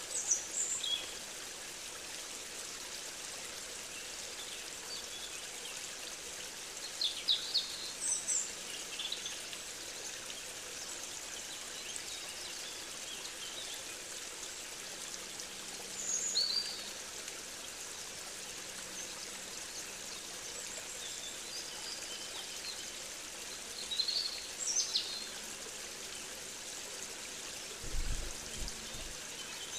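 Nature recording: songbirds giving short chirps every few seconds over a steady rush of running water. A brief low rumble comes near the end.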